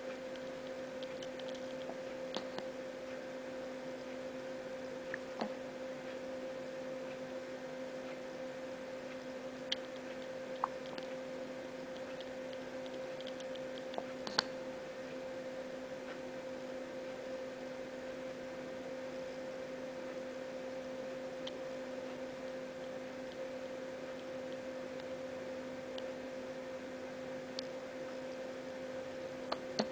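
Baby hiccuping: short sharp hics at irregular gaps of a few seconds, the loudest about halfway, over a steady hum.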